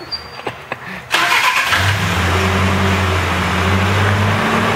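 The show truck's engine is started about a second in and then runs with a steady low drone.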